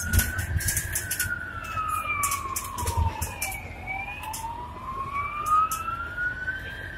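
Scania K280 bus heard from inside the cabin: a drivetrain whine that rises and falls in pitch with road speed. It peaks about a second in, drops to its lowest nearly four seconds in, then climbs again. Interior rattles and clicks and a low engine rumble run underneath.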